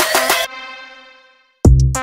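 Background electronic music. A fast beat cuts off about half a second in, a held note fades away into a moment of silence, and then a new beat with heavy, deep bass hits starts near the end: one track ending and the next beginning.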